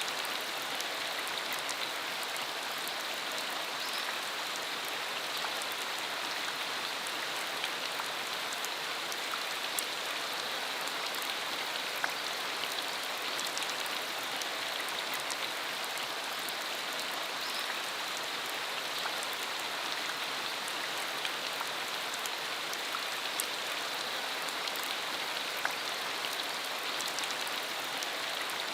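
Steady rain falling on a rural road, an even hiss with scattered sharp ticks of individual drops.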